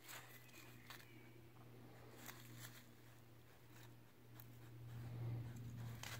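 Faint scratching and rustling of a European badger rooting with its snout in dry grass and dead leaves, in scattered short scrapes. A steady low hum runs underneath and grows louder about five seconds in.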